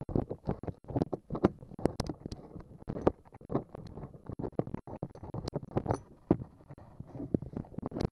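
Screwdriver turning a screw in a PVC pipe transducer arm, with irregular clicks, scrapes and knocks as the pipe and tool are handled close to the microphone.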